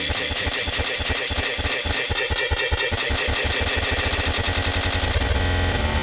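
Experimental noise music played live: a dense buzzing, machine-like texture over rapid low pulses, thickening into a heavier low drone with stepped tones near the end.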